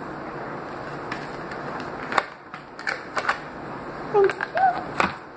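Several sharp clicks and taps from small plastic toys and packaging being handled, starting about two seconds in, over a steady background hiss. A few brief high voice sounds come near the end.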